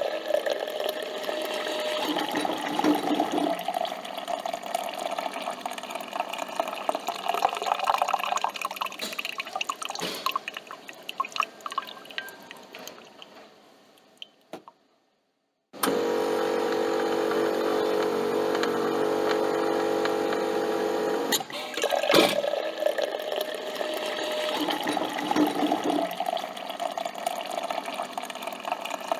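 Coffee machine brewing: coffee trickling and dripping, fading away a little past halfway and dropping to silence for about a second. Then the machine hums steadily for about five seconds, gives a click, and the trickling and dripping start again.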